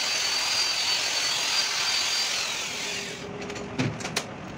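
Handheld rotary power tool working in a valve seat bore of a diesel cylinder head, running with a steady high whine, then spinning down about two and a half seconds in. Two sharp knocks follow near the end.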